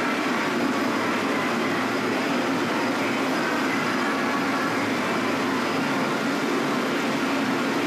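Steady, dense pachinko-parlour din, the sounds of many machines blended into one continuous wash around a Smart Pachinko Sword Art Online machine that is paying out a bonus round.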